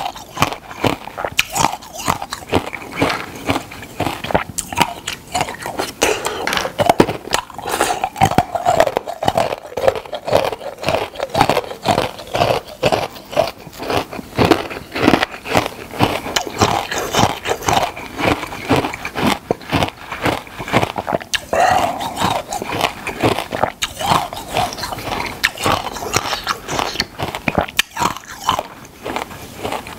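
Close-miked crunching bites and chewing of hard, brittle food, most likely icicle-shaped ice, in a fast, unbroken run of crunches.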